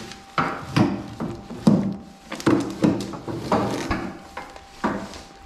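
A clear plastic bag of loose parts being handled and shifted, giving an irregular string of short plastic rustles and light knocks.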